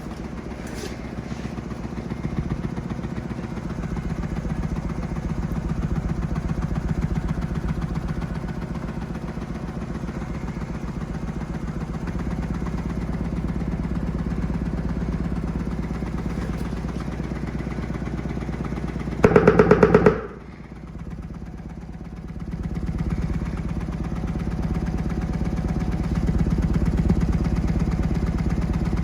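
Bare subwoofer driven open-air by a low test tone from a phone frequency generator, its cone pumping at long excursion with a fast, even pulsing. About 19 seconds in there is a brief, much louder burst, after which the level drops and builds back up.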